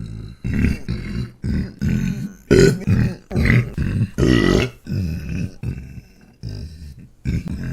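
A man burping again and again: a string of short, low belches, about a dozen, one quickly after another.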